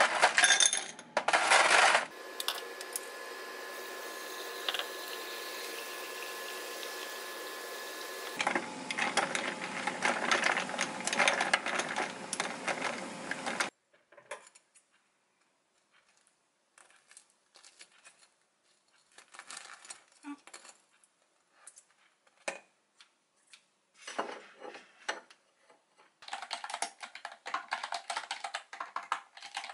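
Ice cubes clinking into a glass. Then a steady appliance hum, followed by light clicks of metal tongs on a ceramic plate. Near the end, fast typing on a retro keyboard with round keycaps.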